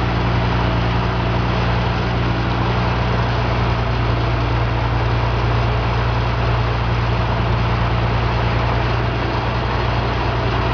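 Portable sawmill's engine running steadily at an even speed, with a low, unchanging drone.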